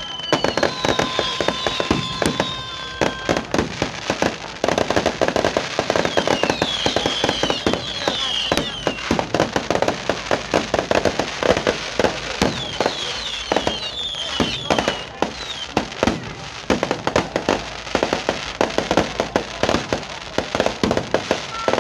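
New Year fireworks going off in a dense, continuous barrage of bangs and crackles, with short high falling whistles in a few clusters.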